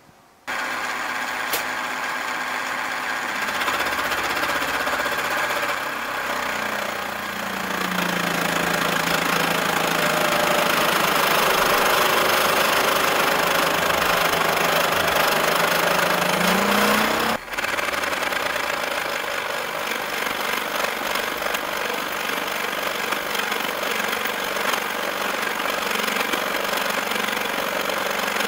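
Milling machine cutting a metal block with a large milling cutter: a loud, steady grinding cut. A hum in it drops in pitch about six seconds in and rises again near seventeen seconds, just before a brief sudden break.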